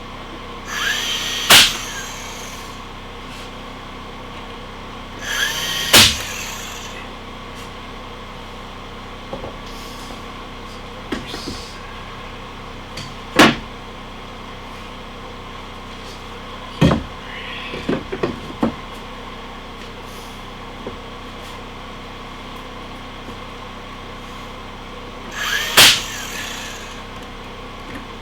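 A power tool driving fasteners in three short bursts, each a brief rising whine that ends in a sharp crack, with scattered single clicks and knocks of carpentry work in between, over a steady background hum.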